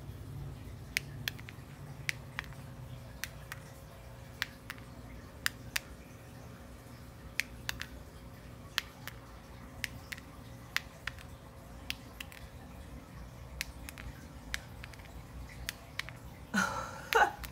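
Light, sharp clicks at irregular intervals, about one or two a second, over a faint steady hum. Near the end comes one short, louder sound that glides in pitch.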